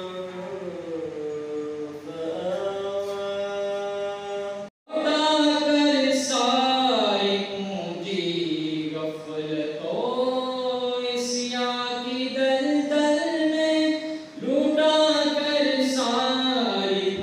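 A young man's solo voice chanting in long, held, gliding melodic phrases, the style of Quran recitation. About four and a half seconds in the voice cuts off abruptly, and after the break a young male voice carries on chanting in the same melodic style.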